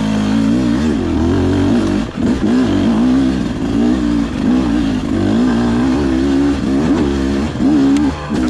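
Beta 250 two-stroke enduro motorcycle engine being ridden, its revs rising and falling again and again as the throttle is worked.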